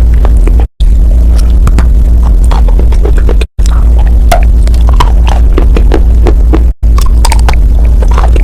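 Close-miked crunching and chewing of dry chalk with paste: many short sharp crackles over a loud, steady low hum. The sound cuts out abruptly three times.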